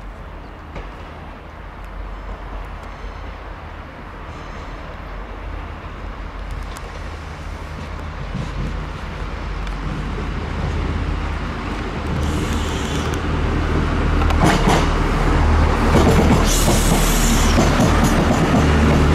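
Irish Rail train approaching and growing steadily louder, with a low running drone, a clank or two about two-thirds of the way through, and short stretches of hiss near the end.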